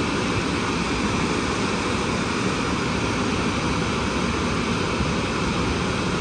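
Drying blowers of an Istobal M12+ rollover car wash blowing air steadily through the fixed roof drying nozzle, a constant even rush of air.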